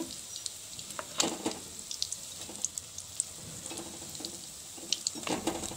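Battered fish pakoras frying in hot oil in a steel kadai: a steady sizzling hiss, with a few sharp clicks and scrapes of a metal ladle against the pan about a second in and again near the end. The frying has reached its end, the coating now crisp.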